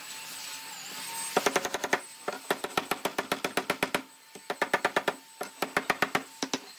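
Rapid runs of sharp wooden knocks, about eight a second, in several bursts with short pauses: a wooden block tapping thin wooden strips down into slots cut in a hardwood slab.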